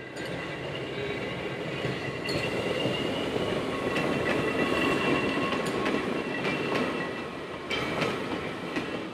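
Manx Electric Railway electric tramcar, with its trailer and mail van, rolling past on curved track: a wheel-on-rail rumble that swells to a peak midway and fades, with a steady high-pitched whine over it and a few sharp clicks as the wheels cross rail joints.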